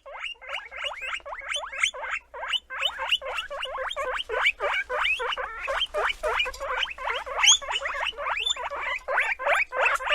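Guinea pig wheeking: a fast, unbroken run of short, rising, high squeals, about four or five a second.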